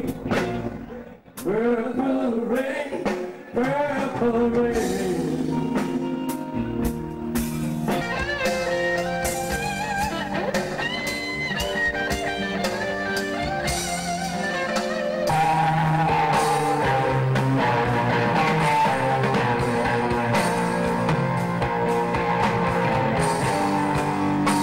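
Live rock band playing: electric guitar, bass, drums and keyboards, with a singer. The sound dips briefly about a second in, then wavering sung or bent-guitar notes lead back into the full band.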